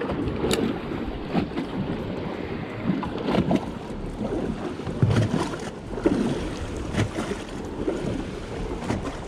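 Choppy, wind-driven water lapping and slapping against a small fishing boat's hull, with wind rumbling on the microphone. Irregular sharp knocks come about half a second, three and a half, five, six and seven seconds in.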